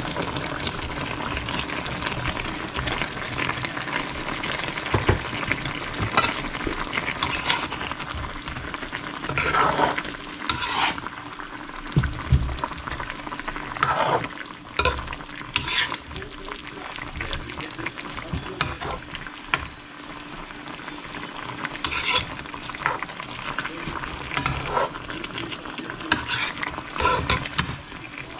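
Metal spoon stirring chicken adobo and pineapple chunks in a nonstick pan while the sauce sizzles, with repeated scrapes and taps of the spoon against the pan.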